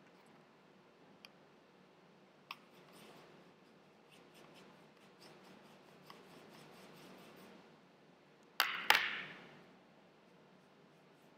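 Faint soft rubbing of a paintbrush working paint on a plastic palette and paper, with a few light clicks. Near the end come two sharp knocks close together, the loudest sound, followed by a brief scrape.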